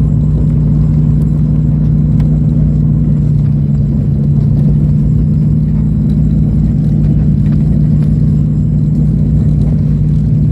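Light aircraft's propeller engine droning steadily at a constant pitch, heard from inside the cabin.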